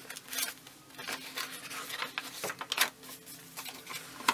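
Paper rustling and flicking as the pages of a small handmade paper booklet are handled and turned, in a series of short rustles, with a sharp tap near the end.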